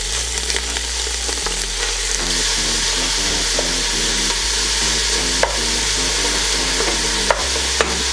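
Ground beef sizzling in hot oil in a stainless steel stockpot while a wooden spatula stirs and breaks it up, with a few sharp knocks of the spatula against the pot in the second half.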